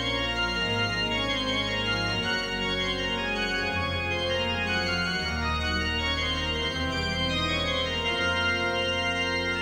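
Instrumental intro music: long held chords over a bass line that changes note every second or two.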